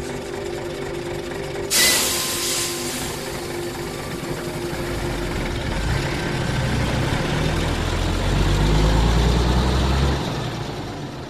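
Bus sound effect: a sudden hiss of air brakes releasing about two seconds in, then the engine running and building up as the bus pulls away, loudest shortly before the end and then fading.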